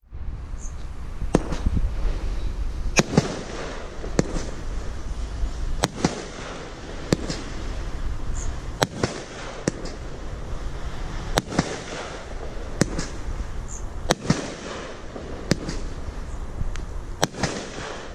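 Firehawk 'One Minute Riot' multi-shot firework firing: a steady crackling hiss of launches and bursts, broken by sharp bangs about once every second or so.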